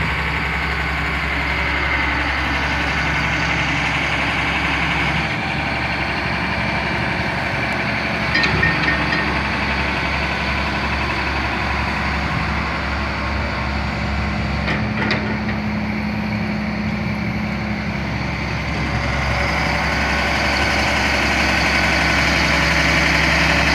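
Diesel engine of a 1999 Sterling boom truck running steadily at idle, getting a little louder over the last few seconds, with a couple of faint ticks midway.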